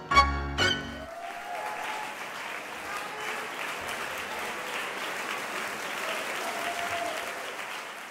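A tango ensemble of bandoneon, violins and double bass strikes two short closing chords, then the audience applauds steadily, the applause dying away near the end.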